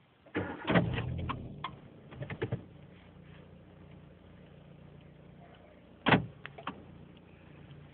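Car engine starting and settling into a steady idle hum. A few light clicks follow, and there is one sharp knock about six seconds in.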